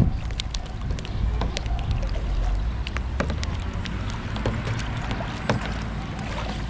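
Double-bladed kayak paddles dipping and splashing in the water, with scattered drips and small clicks, over a steady low rumble.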